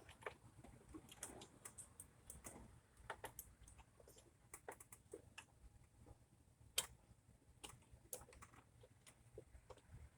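Faint, irregular clicks and light metal taps, with one sharper click about seven seconds in: hand tools working as the EGR valve is bolted back down on its new gasket.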